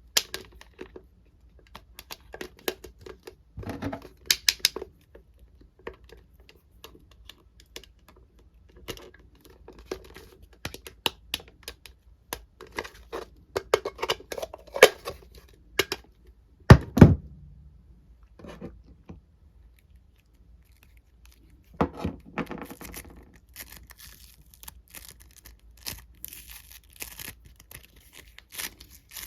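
Hands handling plastic toy parts and a foam squishy: scattered small clicks and scrapes, one louder knock about 17 seconds in, and denser rustling over the last several seconds.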